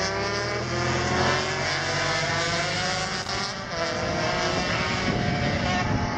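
Racing motorcycles running past on the track, more than one heard at once, their engine notes rising steadily in pitch as they accelerate, with a drop in pitch a little under four seconds in.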